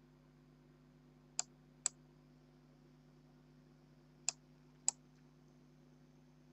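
Computer mouse clicks: two about half a second apart, then two more a couple of seconds later.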